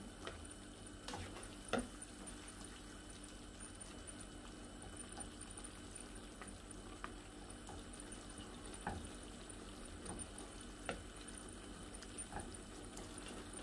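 Tomato sauce with sliced vegetables simmering softly in a frying pan, with a few faint clicks and scrapes as a slotted spatula stirs it.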